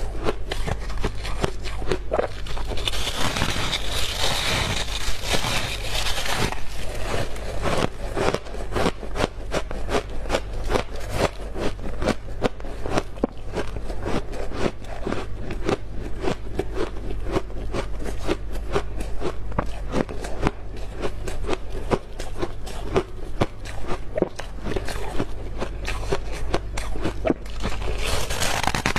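Close-up crunching and chewing of freezer frost: a fast, continuous run of crisp crunches. A longer, hissing scrape comes about three seconds in and again near the end.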